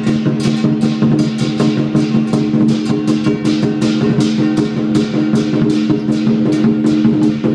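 Lion dance music: drum, clashing cymbals and gong in a fast, steady beat of about four to five strikes a second, over a steady ringing tone.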